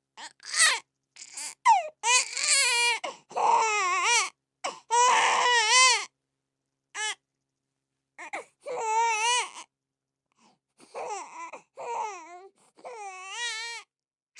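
Newborn baby crying in a series of short, wavering wails with brief pauses between them, louder in the first half and softer after a gap of about two seconds.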